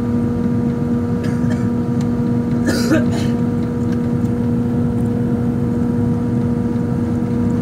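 Airliner cabin noise on final approach with flaps extended: the steady rush of the jet engines and airflow with a steady low hum under it. A short burst of noise about three seconds in.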